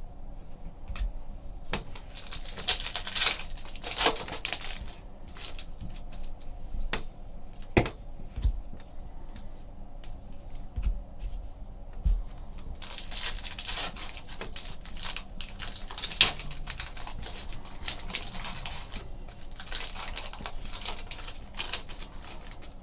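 Trading cards and foil pack wrappers handled by hand: irregular rustling and crinkling in two long spells, with scattered light clicks and taps as cards are flicked through.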